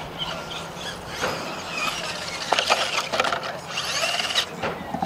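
Electric RC monster truck motor whining as it revs up and down, with a few sharp knocks partway through as the truck hits the dirt.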